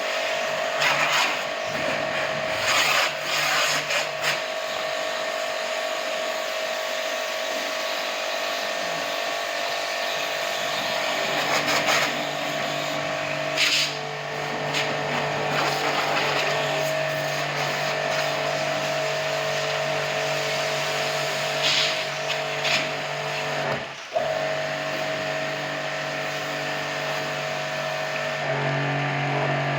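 Electric jet pump used as a pressure washer running steadily, a motor hum under a hiss of spraying water, with short louder spray bursts now and then and a brief dip about two-thirds of the way through.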